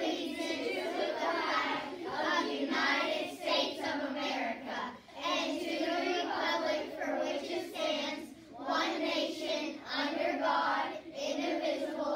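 A group of children reciting the Pledge of Allegiance together in unison, in phrases with short pauses between them.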